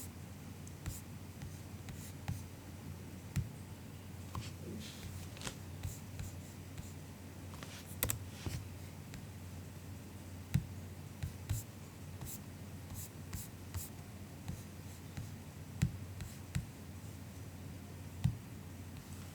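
Soft MacBook keyboard keystrokes, scattered and irregular with pauses between them rather than continuous typing, over a faint steady low hum.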